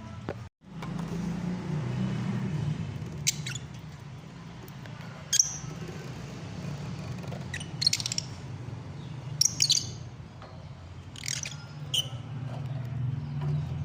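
Lovebirds chirping: about six short, sharp, high chirps spaced a second or two apart, over a steady low hum.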